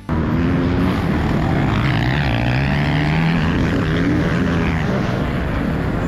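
Onboard sound of a 2022 Honda CRF450 motocross bike's single-cylinder four-stroke engine under way, rising in pitch over a couple of seconds as the bike accelerates, then holding steady.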